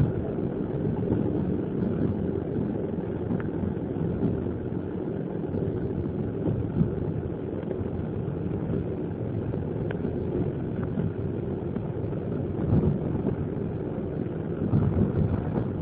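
Steady low rumble of a passenger train rolling along the track, heard from inside a coach, with a few faint clicks. It grows a little louder near the end.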